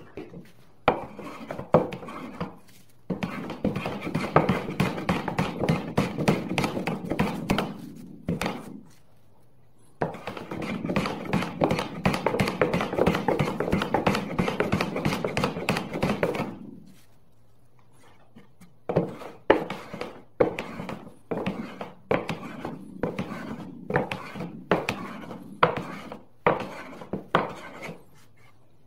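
Hand woodworking tools on wood: two long runs of rapid scraping strokes, then a series of sharp knocks about one a second, as from a mallet or hammer striking wood or a chisel.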